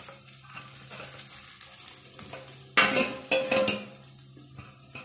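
Damp flattened rice (poha) tipped from a bowl into a nonstick kadai of fried potatoes, the flakes landing with a faint patter. About three seconds in comes a louder burst of scraping and rustling as the flakes are pushed around in the pan.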